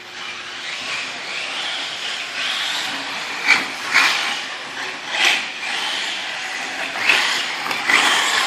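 Radio-controlled trucks running on a race track: a steady hiss of motors and tyres, with five short, louder spikes as trucks pass close by.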